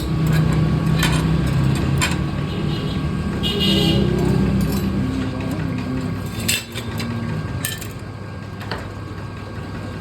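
Old lathe running with a steady low hum while iron wire is wound into a spring, with irregular metallic clinks and knocks and a brief high squeal just before the fourth second.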